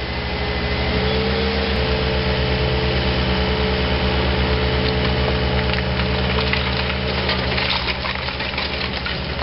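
Volvo compact excavator's diesel engine running steadily as it works. Near the end, a clatter of rock as the bucket tips quarry stone into a wire-mesh gabion basket.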